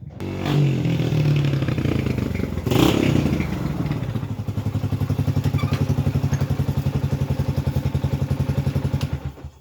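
Yamaha XTZ 125 single-cylinder four-stroke engine running after its loose magneto rotor and sheared key were put right: it revs up in the first few seconds, then settles to an even idle and is switched off shortly before the end. The owner calls it running perfectly.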